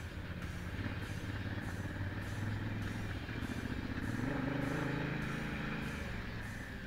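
Honda Africa Twin CRF1000L parallel-twin engine running as the bike rides over a cobbled trail, its note rising about halfway through and easing off near the end, with wind rumble on the microphone.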